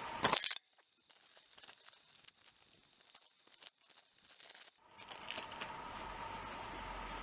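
Clear plastic packaging crinkling and being torn open around a new motorcycle sprocket, with one loud rip about half a second in, followed by quieter crackling of the bag. A steady background hiss takes over about five seconds in.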